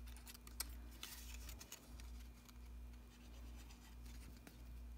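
Faint scratching and light ticks of a glue bottle's fine-tip nozzle and fingers working against a small kraft cardstock tab, over a steady low hum.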